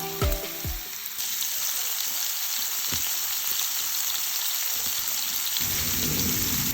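Food sizzling in a frying pan, a steady hiss that sets in about a second in as the last notes of background music die away.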